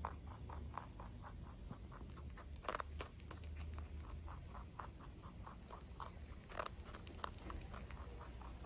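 Rabbit chewing a crisp piece of green vegetable: a steady run of small crunches about five a second, with louder crunches about three seconds in and again about two-thirds of the way through.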